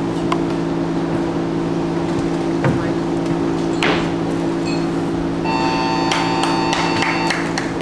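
A steady low hum fills the weightlifting hall during a barbell snatch. About four seconds in, as the bar goes overhead, there is a brief rush of noise. From about five and a half seconds, after the lockout, a steady high tone sounds along with scattered clapping as the lift is judged good.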